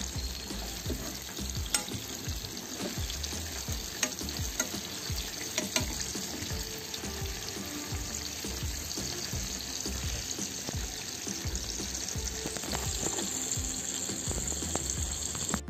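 Whole mullet shallow-frying in hot oil in a pan: a steady sizzle and spatter, with a few sharp clicks as a steel spoon knocks against the fish and pan.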